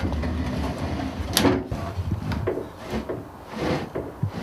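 A heavy metal automatic voltage regulator unit being slid and shifted into its mounting, scraping and rumbling, with a sharp knock about one and a half seconds in.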